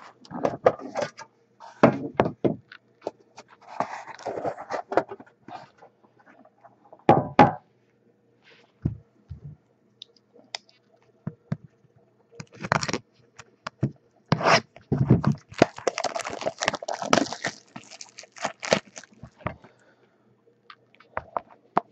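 Hands handling a trading-card box and its tin, with scattered scrapes, taps and knocks. Near the end comes a longer stretch of plastic wrap rustling as it is pulled off the card case.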